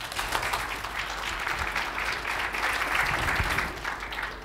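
Audience applauding: many hands clapping in a dense, even patter that eases off near the end.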